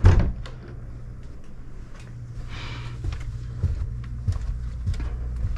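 A small wooden attic access door thuds shut. Then footsteps go down a staircase, a soft thud about every half second.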